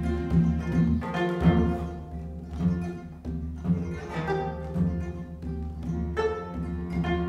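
A 25-string gayageum, the Korean plucked zither, plays sharp plucked notes over a sustained bowed cello line, with strokes on the janggu, the Korean hourglass drum.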